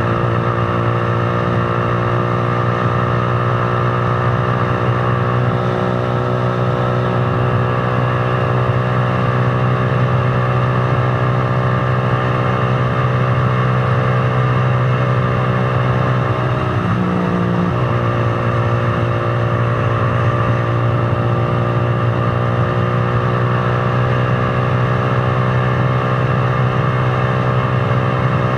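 Z200 motorcycle's engine running at a steady cruising speed while riding, with road and wind noise. Its pitch dips briefly and recovers about two-thirds of the way through.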